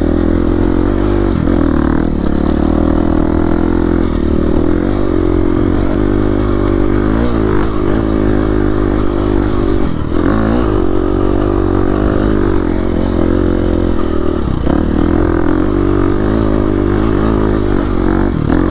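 KTM 350 EXC-F dirt bike's single-cylinder four-stroke engine running hard under load on a steep hill climb, its revs dipping and picking up again several times.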